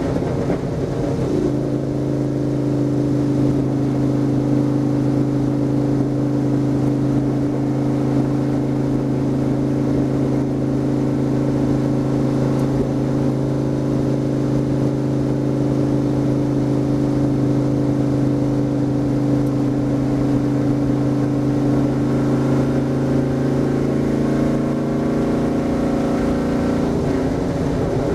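Stock car's V8 engine running hard at a steady high pitch, heard from inside the cockpit at speed. The pitch settles about a second in and shifts slightly near the end.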